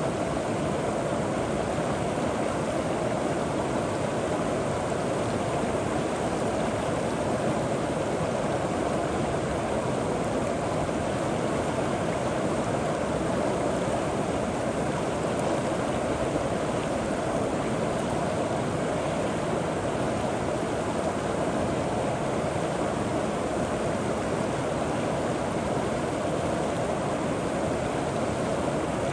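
River water flowing steadily over rocks, a constant rushing with no breaks or changes.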